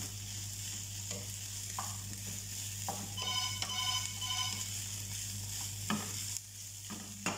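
Chicken and vegetables stir-frying in a frying pan: a steady sizzle, with a wooden spatula scraping and knocking against the pan every second or so.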